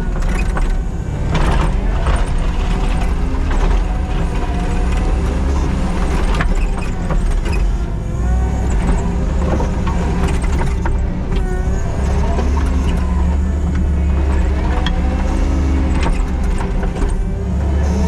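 Kubota SVL97-2 compact track loader's diesel engine running steadily under load while grading, with shifting higher-pitched whines over the engine and a few knocks.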